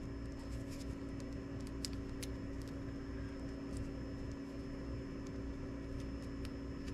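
Steady low room hum, with a few faint small ticks as a tiny screwdriver lifts the latch on a plastic servo plug to free a wire's crimped pin.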